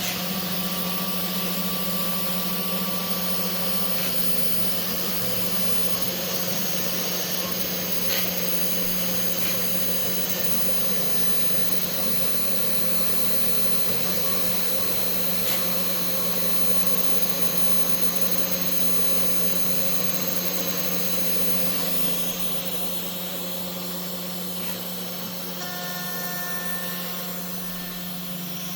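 CNC router spindle running steadily as its bit carves, a constant hum and hiss with thin tones that come and go as the machine moves. It gets somewhat quieter about 22 seconds in.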